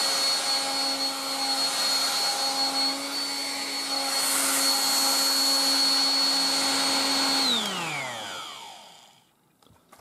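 1960s Dateline DLMD hairdryer running steadily: a motor hum and a high whine over the rush of air. About seven and a half seconds in it is switched off and the motor winds down, its pitch falling away over about a second and a half.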